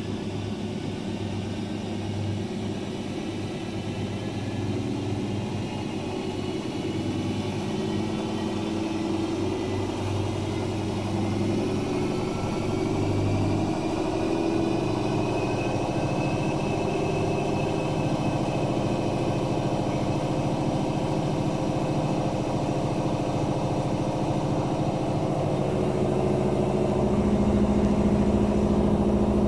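Daewoo DWD-FT1013 washing machine running its spin cycle with an unbalanced load. The motor hums steadily while a whine rises and then falls around the middle, and the machine grows gradually louder toward the end.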